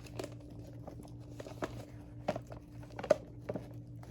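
Paper vacuum dust bag being handled and fitted onto an old upright vacuum: soft crinkling and rustling with scattered light taps and a few sharper clicks, over a faint steady hum.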